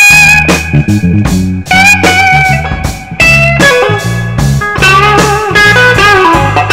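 Live blues band: a lead electric guitar plays an instrumental solo of sustained and bent notes over a second guitar and a drum kit.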